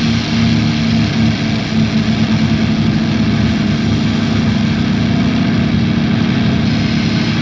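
Drone/noise music: a loud, dense wall of noise held steady over a sustained low droning tone, with no beat or melody.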